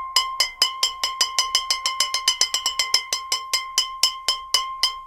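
Intro of an EDM instrumental track: a single pitched percussion note struck over and over in a fast, uneven rhythm of about six strikes a second. It spaces out a little toward the end, then stops.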